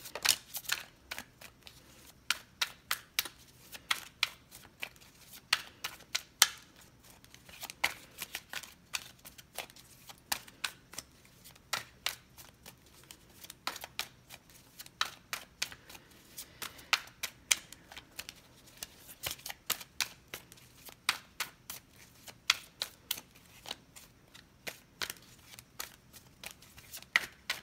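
A tarot deck being shuffled overhand by hand: a running series of sharp card snaps and taps, several a second, coming in clusters with short pauses.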